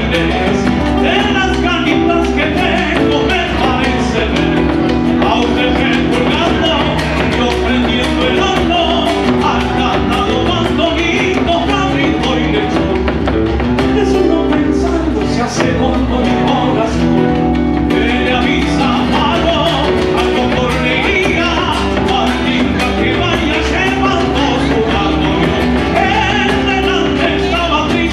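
Argentine folk gato played live on two acoustic guitars, with a drum keeping the beat.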